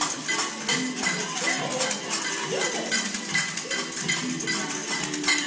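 A group of young children playing small handheld percussion instruments: many irregular, uncoordinated metallic strikes with a bell-like ring.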